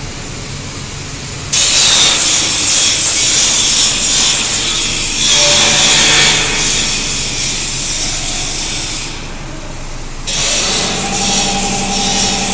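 Wood crusher running and grinding wood: a loud, rough, hissing grind in several abruptly cut stretches, with a steady machine hum joining in for the last couple of seconds.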